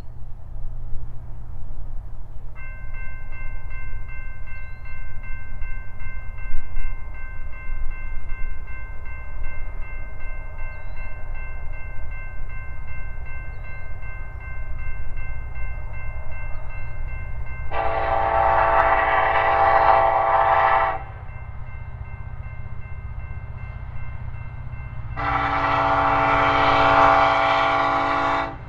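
Norfolk Southern SD70ACe diesel locomotive approaching with a low rumble, its horn sounding two long blasts about 18 and 25 seconds in, each about three seconds long. A fainter steady chord of tones holds from a few seconds in until the second blast.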